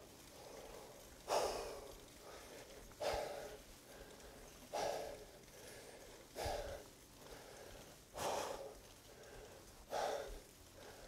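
A cyclist's heavy breathing while pedalling up a steep climb: a hard exhale about every 1.7 seconds, six in a row. It is the rhythmic breathing of hard effort.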